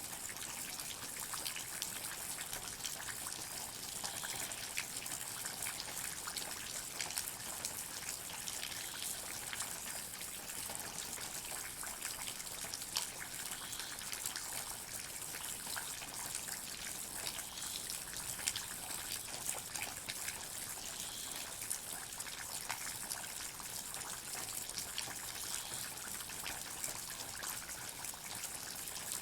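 Water drops falling steadily in a forest, a constant stream of small drip clicks over a trickling hiss, with no change in pace.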